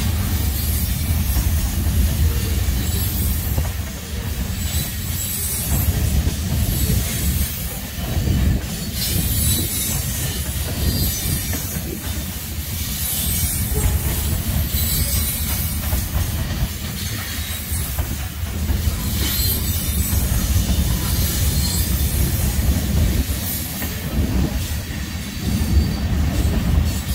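Freight cars of a Norfolk Southern mixed freight train rolling past: a steady low rumble of steel wheels on rail, with high-pitched wheel squeal that comes and goes.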